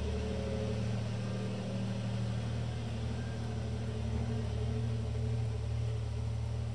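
A steady, low mechanical hum with several held tones.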